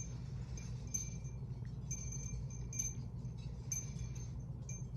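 Wind chimes ringing now and then, a few high tinkling notes about once a second, over a steady low hum.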